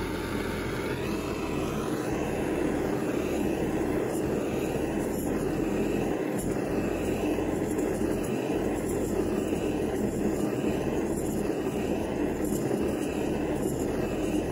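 RONX butane torch burning with a steady hiss, its flame heating a sterling silver bezel wire ring to flow silver solder at the joint.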